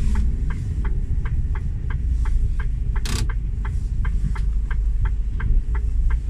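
Turn-signal relay ticking steadily in a truck cab, about three ticks a second, over the low rumble of the diesel engine. A short hiss cuts in briefly about three seconds in.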